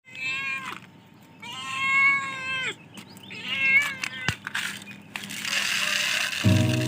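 Hungry stray cats meowing three times, the second call long and drawn out. A sharp click follows, and music begins near the end.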